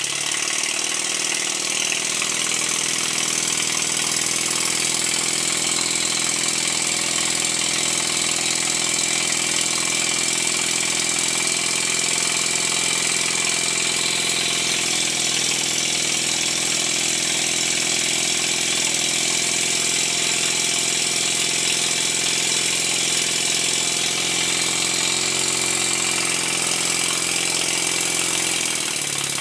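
Stuart 10H model steam engine running fast and steady on compressed air, its exhaust beats and a strong hiss of escaping air. The engine is being run in with freshly set valve timing, which is slightly retarded. Its speed shifts a little near the end.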